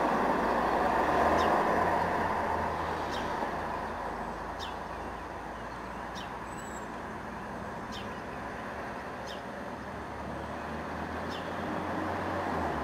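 Road traffic noise, swelling and fading as vehicles pass, loudest about a second in and again near the end. Over it a small bird repeats a thin, high call that falls in pitch, about seven times.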